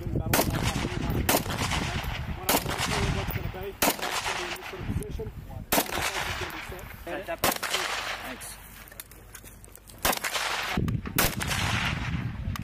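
Single shots from a Steyr bullpup rifle, fired one at a time at an uneven pace about one to two seconds apart, each crack followed by a short echo. The shots pause for about two seconds past the middle, then resume.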